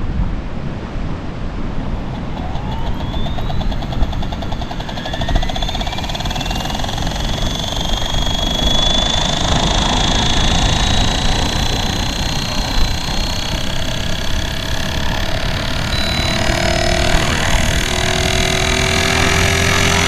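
Blade Fusion 360 electric RC helicopter spooling up, its whine rising over several seconds and then holding steady, with a loud gear noise from sand caught in the main spur gear. Wind rumbles on the microphone underneath.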